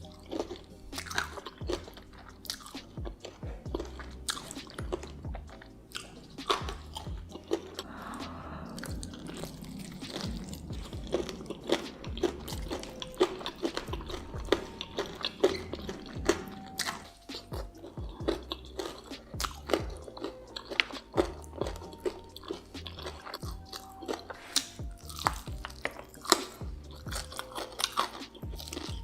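Close-miked eating: repeated crunching bites and wet chewing, with frequent sharp crunches.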